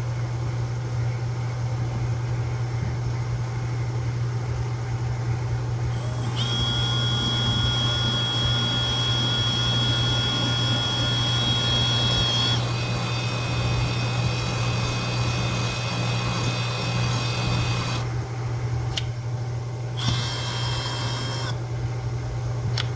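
Handheld electric drill running while boring a depth-marked hole into a screwdriver handle. It starts about six seconds in and runs steadily for about twelve seconds, its whine dropping in pitch halfway through, then runs again briefly near the end. A steady low hum sits underneath throughout.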